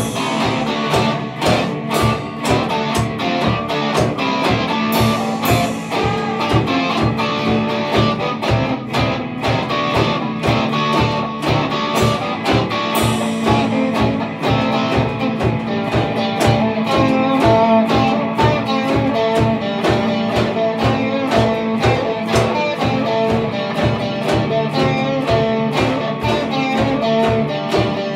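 Instrumental rock played live: two electric guitars over a drum kit keeping a steady beat, with a couple of cymbal crashes.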